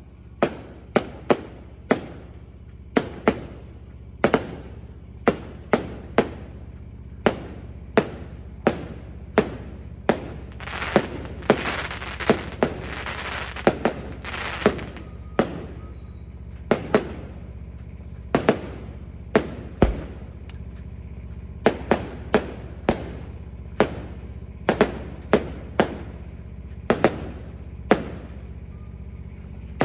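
Aerial fireworks bursting overhead in a long, uneven run of sharp bangs, about one or two a second. A dense hiss rises under the bangs from about ten to fifteen seconds in.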